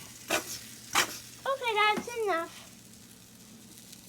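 Pancake batter sizzling on a hot griddle, with two short sharp spurts in the first second. About one and a half seconds in comes a brief wordless voice sound that bends up and down, lasting about a second.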